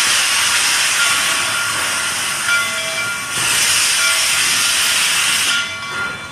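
Steam locomotive hissing loudly as it vents steam while moving slowly. There are two long hisses, with a short break about three seconds in, and the hiss fades near the end.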